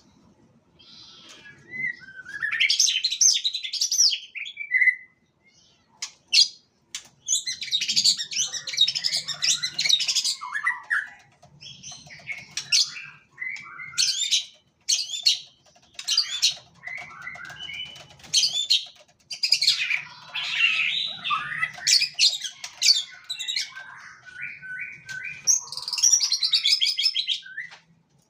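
White-rumped shama singing loud, varied whistled phrases in bursts of a second or more, with short pauses between them. This is the energetic non-stop 'gacor' song of a bird in full form.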